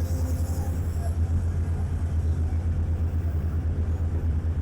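Diesel engine of a Sany SY335C excavator running with a steady low drone.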